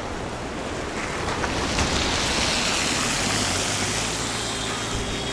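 Rushing water of the Lidder River, a fast glacier-melt river, with a motor vehicle passing about two seconds in, its engine hum lingering near the end.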